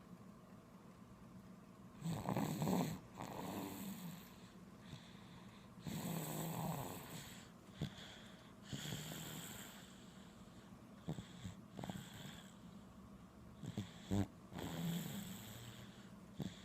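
A sleeping baby snoring, with a noisy breath every two to three seconds, each carrying a low rasping tone and a hiss. A few short clicks fall between the breaths.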